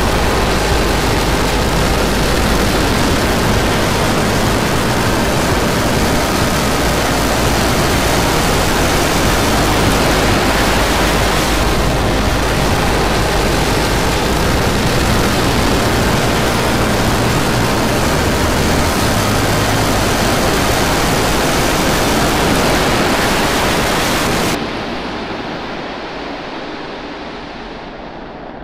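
Starship SN10's Raptor rocket engine firing through its landing burn: a loud, steady rumbling rush of exhaust that cuts off sharply about 25 seconds in at shutdown, leaving a quieter, fading hiss.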